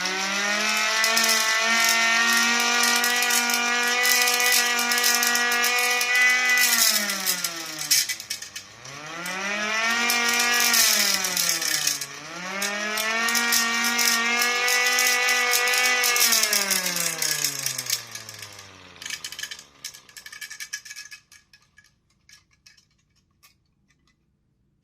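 Homemade 3D-printed two-tone air raid siren (8-port and 5-port rotors), hand-cranked through reduction gearing: it winds up to a steady wail, sags and winds up again twice, then winds down and stops, with a few clicks as it coasts. A rattly rubbing noise runs over the wail, which the builder puts down to the impeller rubbing inside the housing.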